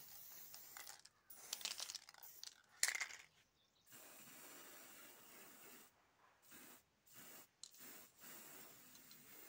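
Aerosol spray paint can spraying in a run of hisses: one long spray, then several short bursts with pauses between. About three seconds in there is a sharp click, the loudest moment.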